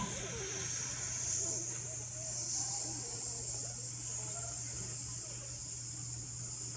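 Steady hiss, like static, over a low hum, cutting off suddenly at the end.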